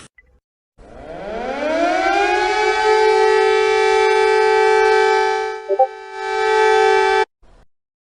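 Civil defense warning siren winding up from a low pitch to a steady two-tone chord. It dips and wavers briefly about six seconds in, then cuts off suddenly.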